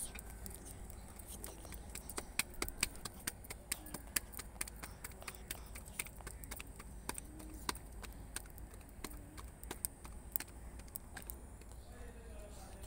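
Hands patting and slapping dough between the palms to flatten a roti, a run of sharp pats several a second with short pauses.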